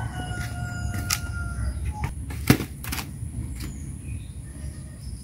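Wooden logs being set down on bare dirt ground: one sharp, loud knock about halfway through, with a couple of lighter wooden knocks around it, over a steady low rumble. A thin, steady whistling tone sounds in the first two seconds.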